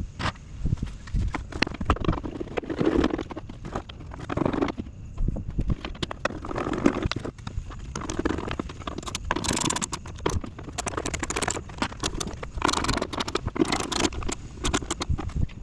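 Irregular clicks, knocks, scrapes and rattles of hand tools, bolts and a plastic fan shroud being handled while an engine bay is reassembled, with two longer stretches of scraping about two-thirds of the way through.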